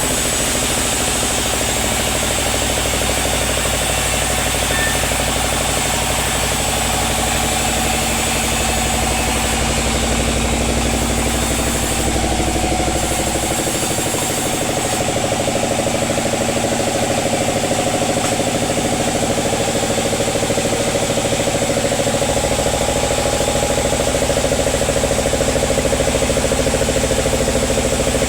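Sawmill machinery running with a steady, engine-like drone; its deepest rumble drops away about halfway through.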